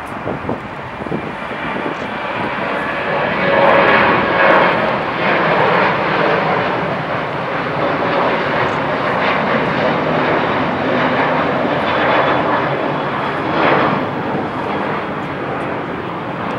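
Boeing 737-800's CFM56-7B turbofan engines at takeoff thrust as the airliner lifts off and climbs away, a loud, rumbling jet noise. It is loudest about four seconds in and eases only a little as the plane climbs.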